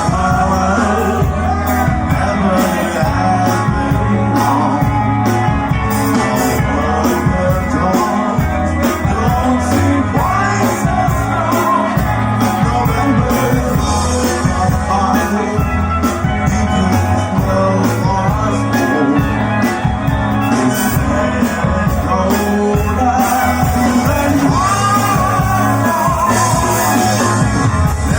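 A rock band playing live, with a singer's voice over guitars, bass and drums; loud and steady throughout.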